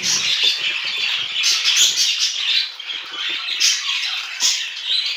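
Budgerigars chattering and squawking, a steady dense stream of short high calls from several birds at once.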